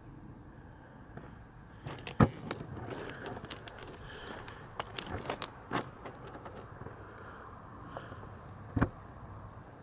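Sharp knocks and crackles from the person filming moving about, two of them loud, about two seconds in and near the end, over a low steady wind rumble. No train is heard yet.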